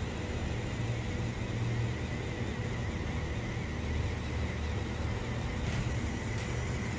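3D printing pen's small filament-feed motor running steadily with a low hum and a faint high whine, a sound called bizarre and "wiggly".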